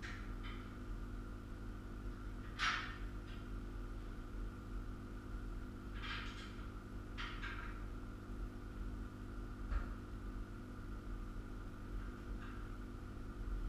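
Short, irregular metal clinks and scrapes of hand tools and bolts on the steel rail frame of a bolt-together chainsaw sawmill under assembly, five or so spread a few seconds apart, the loudest about three seconds in. A steady low hum runs underneath.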